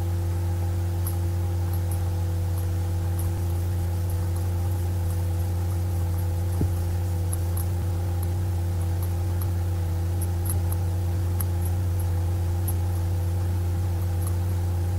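A steady low hum made of several fixed tones runs underneath. Faint computer mouse clicks are scattered irregularly through it as shapes are dragged and rotated.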